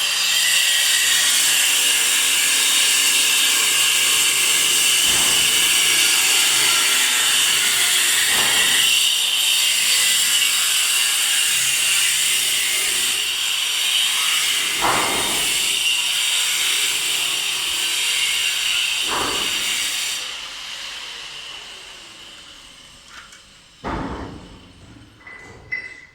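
A power tool running steadily with a high, hissing whine, switched off about twenty seconds in and winding down, followed by a few sharp knocks.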